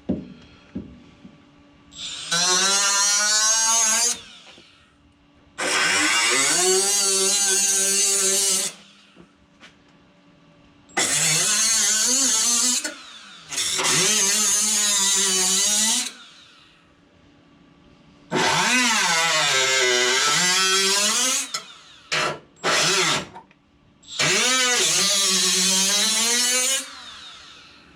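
A high-speed cut-off wheel cutting through rusted car-body sheet metal, run in six bursts of two to three seconds each with two short blips near the end. Its whine spins up at the start of each burst and sags and wavers as the wheel bites into the metal.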